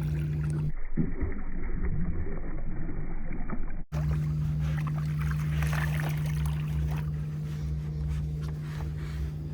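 Steady hum of a fishing boat's motor. For about three seconds, starting near the first second, it gives way to a rougher stretch of knocks and rustling before the hum returns.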